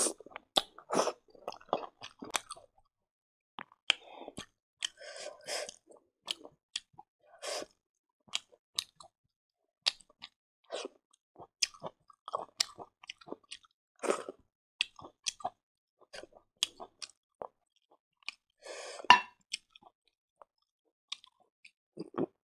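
A person chewing pork close to the microphone, with irregular wet smacking and clicking mouth sounds. There is a louder burst at the start and another late on.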